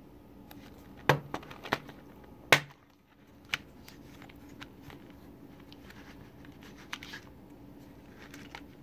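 Plastic Blu-ray case being handled and opened: a quick run of sharp clicks and snaps, the loudest about two and a half seconds in, then a few fainter plastic ticks near the end as the hinged inner disc tray is turned.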